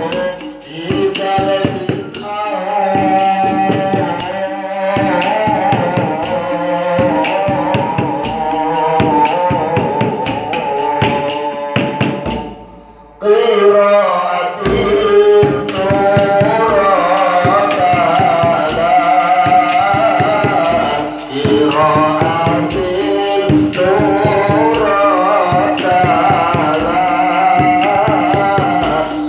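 A woman singing a sholawat (Islamic devotional song) into a microphone over a rhythm of rebana frame drums and kendang with jingling percussion. The music cuts out briefly a little before halfway, then picks up again.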